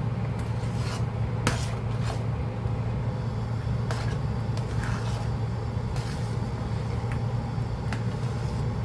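A utensil scraping and knocking in a cooking pot as the calamay mixture is stirred, with scattered sharp knocks every second or so over a steady low hum.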